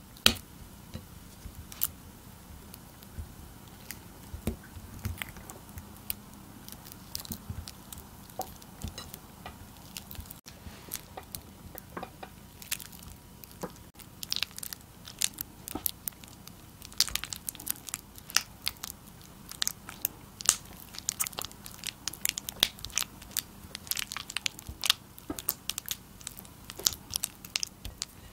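Wooden spatula stirring and creaming softened butter in a glass bowl: irregular sticky squelches and clicks of the spatula against the glass, getting quicker and denser about halfway through.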